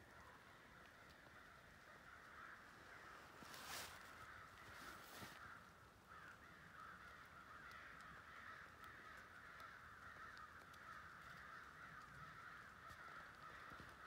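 Faint, continuous chattering of a distant flock of birds, with two brief clicks about four and five seconds in.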